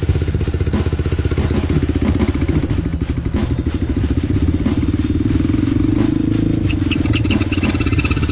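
Yamaha TT-R dirt bike's four-stroke single-cylinder engine running under way with a repeated mechanical clatter through it. The noise is getting worse and is the sign of what seems to be internal engine damage.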